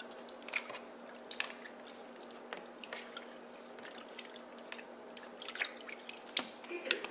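Hand swishing cut yardlong beans through water in a plastic basin: irregular small splashes and drips, busier near the end. A faint steady hum runs underneath.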